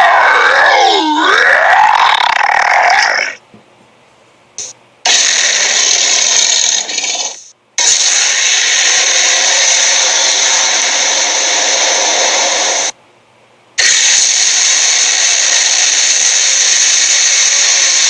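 Cartoon sound effects: a wavering vocal groan that glides up and down, then long stretches of a steady whirring, machine-like noise, broken twice by short silences.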